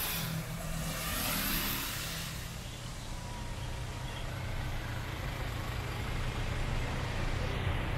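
A heavy vehicle's engine running as it passes, a steady low drone, with a broad hiss in the first couple of seconds that then fades.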